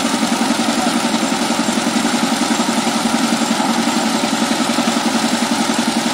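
Power tiller's single-cylinder diesel engine idling with a steady, even chugging.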